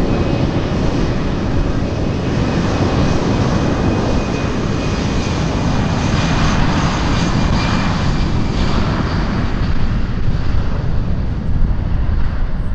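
C-17 Globemaster III's four Pratt & Whitney F117 turbofan engines running at high power for the takeoff roll. A loud, steady jet noise carries a thin high whine that fades about two-thirds of the way through.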